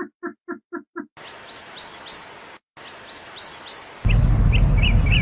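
Bird-like chirps over a steady hiss, coming in two groups of three. A few short squeaky notes come just before them. About four seconds in the sound cuts to a louder low rumble carrying quicker, shorter chirps.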